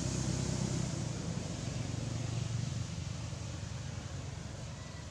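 A motor vehicle's engine running steadily and slowly fading as it moves away.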